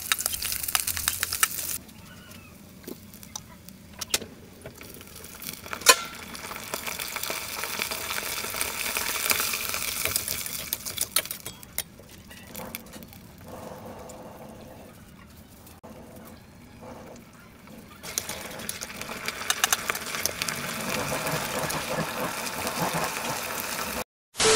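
Food frying in oil in a steel pot, a steady sizzle, with sharp clicks and scrapes of a spatula against the pot, in several stretches.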